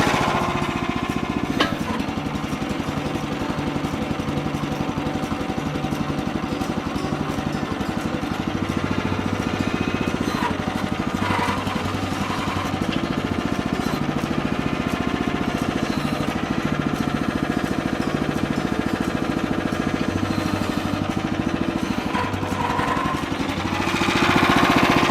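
Small gasoline engine running steadily with a fast, even chugging pulse, getting louder briefly near the end as it is revved.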